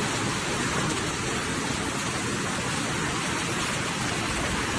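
Rain pouring down steadily, an even, unbroken hiss.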